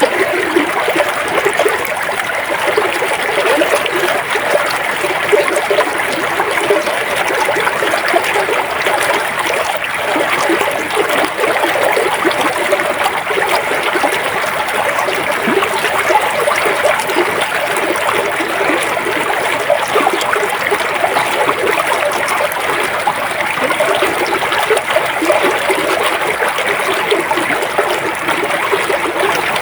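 River water flowing: a steady, even rush of babbling water with constant small splashes and trickles, unchanging throughout.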